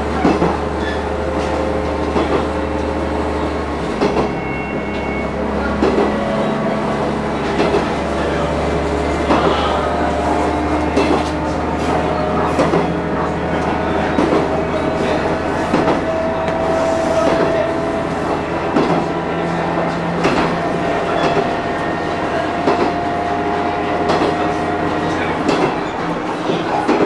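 Diesel railcar running at speed, heard from beside the driving cab: a steady low engine drone with wheels clicking over rail joints every second or so, and faint held whining tones. About 25 seconds in, the low drone drops away as the train runs onto a steel truss bridge.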